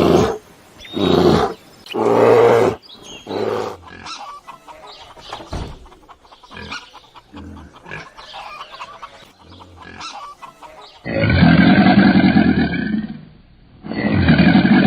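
Tiger roaring in short calls about once a second, then quieter chicken clucking, then two long, deep animal calls of about two seconds each near the end.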